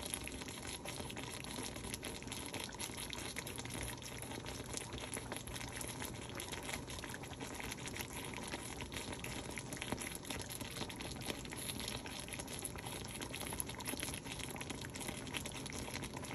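Chicken juices with a little oil simmering in a stainless steel wok around a halved whole chicken, bubbling and sizzling as a steady crackle of many small pops. The liquid is water the chicken released while covered, now cooking off.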